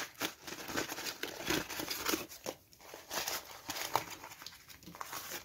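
A damp sheet of paper, softened with water and hair conditioner, being scrunched and crumpled in the hands: irregular crinkling and crunching.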